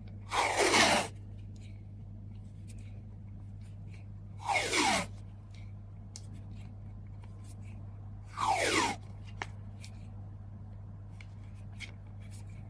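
Adhesive tape pulled off a roll three times, about four seconds apart, each pull a short screech that falls in pitch. Small handling clicks and a steady low hum lie beneath.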